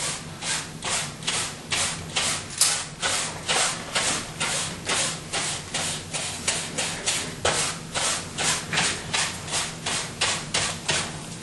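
A paintbrush stroking and scrubbing across a stretched canvas in quick, even strokes, about three a second.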